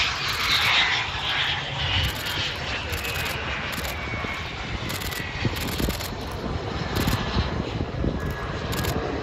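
Blackburn Buccaneer's twin Rolls-Royce Spey turbofans running as the jet moves along the airfield. A thin whine slowly falls in pitch under a steady engine rush that fades in the first couple of seconds, then holds.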